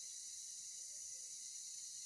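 Steady high-pitched drone of forest insects, with a couple of faint, soft low calls about a second apart.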